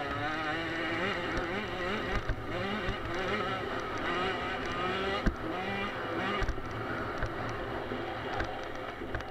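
Small 50cc two-stroke motocross bike engine revving up and down as the throttle is worked over a bumpy dirt track, its pitch rising and falling every second or so. A few sharp knocks from the bike hitting bumps, and the engine note drops off near the end.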